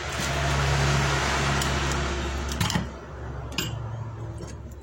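A small electric motor, most likely a power tool, running steadily with a hum and a hiss, then easing off after about two and a half seconds, with two sharp clicks.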